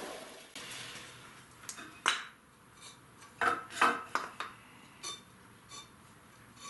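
Light clicks and clinks of a metal combination square and a wooden block being set down and handled, as a freshly sanded face is checked for square. Under the first second or two, a power tool winds down and fades out.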